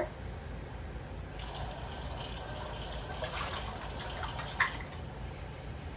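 Kitchen tap running cold water to fill a container for gravy, with one short knock about four and a half seconds in.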